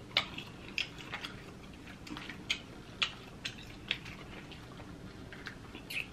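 Boiled crawfish shells cracking and snapping as they are twisted apart and peeled by hand: a string of short, sharp cracks, about nine, at uneven intervals.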